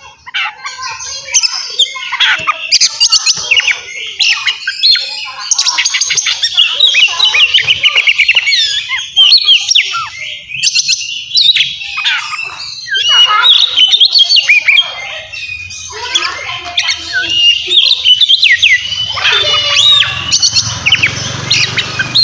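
An Oriental magpie-robin (kacer) singing loudly and continuously in full song: a varied run of clear whistled phrases and pitch glides mixed with fast, harsh rattling note series, with a couple of short pauses.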